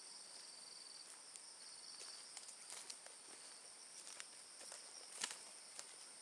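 Night insects calling in a steady, high-pitched chorus of two held tones, with scattered faint clicks and rustles. The sharpest click comes about five seconds in.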